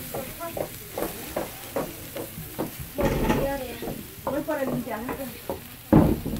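Chicken pieces sizzling on a grill, with metal tongs clicking and scraping against the grate, and a loud knock about six seconds in.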